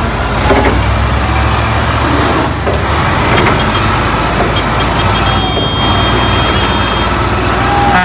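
Heavy diesel engine of the recovery machine running hard under load as it pulls on a shortened wire-rope sling to drag an overturned truck, a steady low drone; the pull does not succeed.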